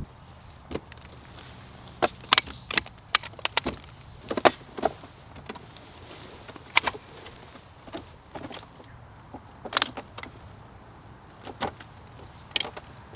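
Irregular sharp clicks, knocks and light rattles from handling a hard-shell rooftop tent and its telescoping ladder, a cluster of them in quick succession a couple of seconds in, then single clatters every second or two.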